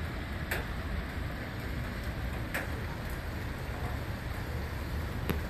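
Steady hiss and low rumble of the outdoor air during a heavy fall of wet snow, with three sharp ticks like drips landing about half a second, two and a half seconds, and five seconds in.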